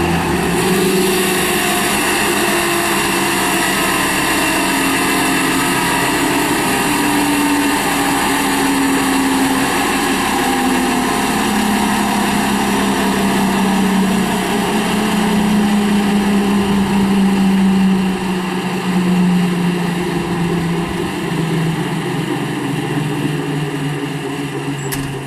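Skid steer loader running a hydraulic brush cutter, the engine and cutter drone rising and falling in pitch as the load changes. The sound eases off somewhat about 18 seconds in.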